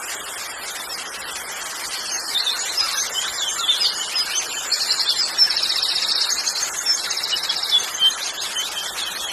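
Steady rush of waterfall or stream water, with forest birds chirping and giving rapid high trills over it in the middle stretch.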